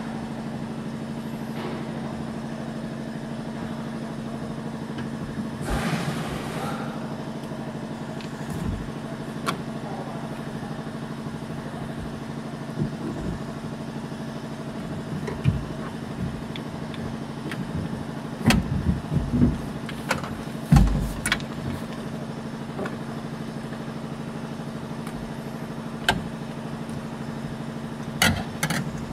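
A steady low hum, like an idling car engine, under scattered sharp clicks and knocks as the plastic and metal parts of a door lock actuator are handled and pried apart. There is a short hiss about six seconds in.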